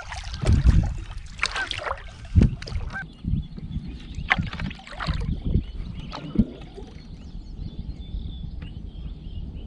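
Canoe being paddled on open water: paddle strokes and water splashing, with a few low knocks. Water birds call in the background.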